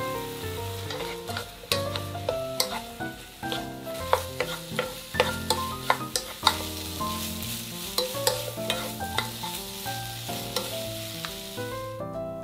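Beef, shiitake and wood ear mushrooms sizzling in a nonstick frying pan while a spatula stirs them, with many sharp clicks and scrapes of the spatula against the pan. The sizzling cuts off near the end.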